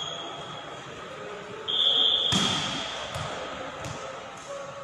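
Referee's whistle blows a short steady blast, cut off by a loud smack of a volleyball echoing through the sports hall. A couple of lighter ball impacts follow.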